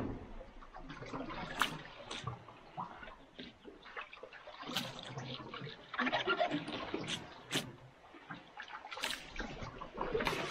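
Water splashing and sloshing, with irregular sharp splashes and knocks.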